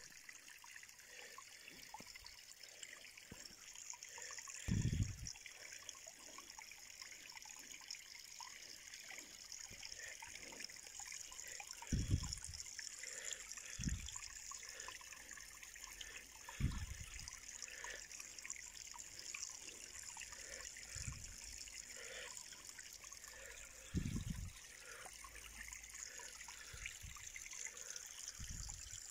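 Garden pond water trickling and splashing gently and steadily from a small fountain jet and over the rocks. A handful of brief low thumps sound through it.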